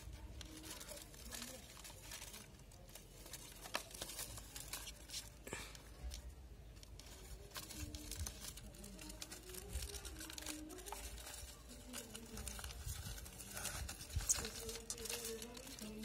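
Faint rustling, crinkling and small clicks from a net-covered wicker box of European goldfinches being handled, with faint voices in the background.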